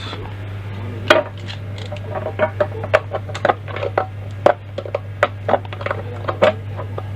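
Hand-tool work on a building joint: irregular light knocks and clicks, a few each second, over a steady low hum.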